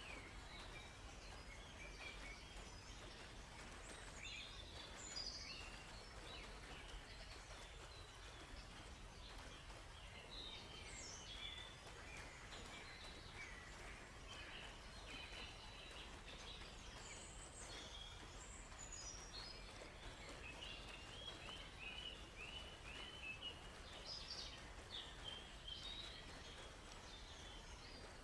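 Several birds chirping and calling over a faint steady rush of flowing water, with one bird giving a run of quick repeated notes about three quarters of the way through.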